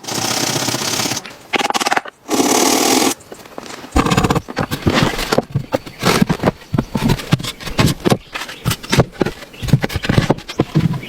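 Hand work on wood: three long rasping strokes, then a fast, irregular run of knocks and taps.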